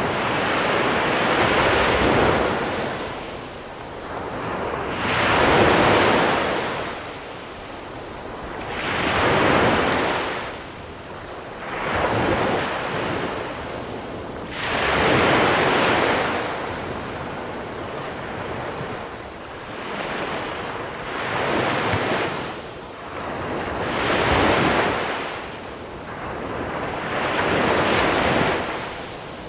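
Small sea waves breaking on a pebble beach, the water washing over the small stones. Each surge swells and falls away every three to four seconds.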